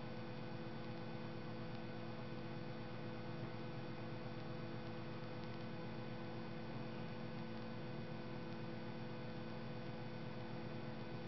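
Steady electrical hum of several held tones over a faint hiss.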